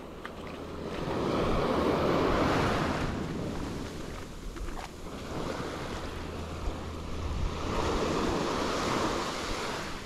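Ocean waves breaking and washing up on a sandy beach, the surf swelling twice, first about a second in and again near the end. Wind rumbles on the microphone underneath.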